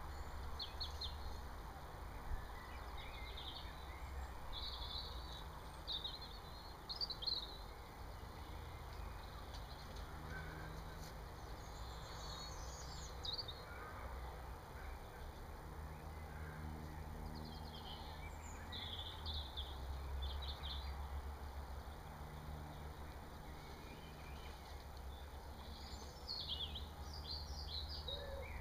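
Small birds chirping and singing in short, scattered phrases, over a steady low background rumble.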